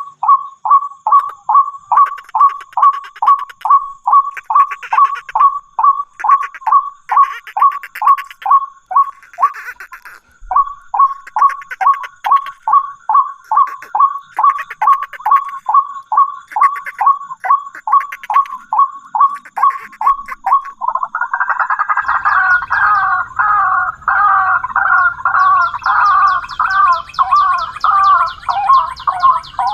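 White-breasted waterhen (ruak-ruak) call repeated over and over: loud, short falling notes about two a second, with a brief break about a third of the way in. Near the end the call turns denser and fuller.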